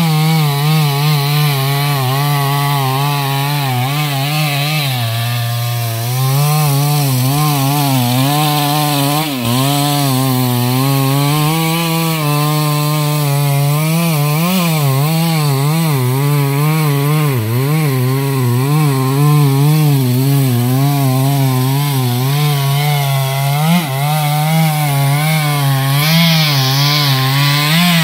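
Two-stroke chainsaw running under load as it saws into the trunk of a large mango tree. Its engine pitch wavers up and down as it cuts, dropping lower for a moment about five seconds in.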